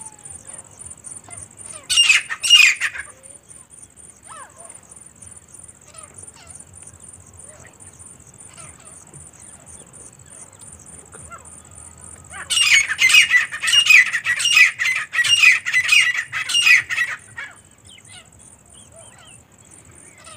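Grey francolins (teetar) calling: a short loud call about two seconds in, then a run of about ten loud repeated notes lasting some five seconds.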